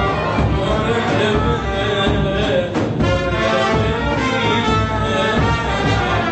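Live Greek folk brass band from Kozani (chalkina) playing a tune: several brass horns play together, loud and steady.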